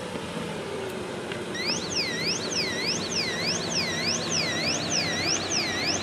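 Betterlink solar driveway alarm's siren warbling in repeated rising-and-falling sweeps, about two a second, starting about a second and a half in: the motion sensor has detected a car pulling up.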